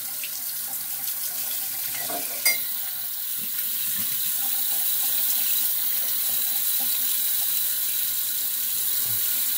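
Bathroom sink tap running steadily, water splashing into the basin, with a single sharp knock about two and a half seconds in.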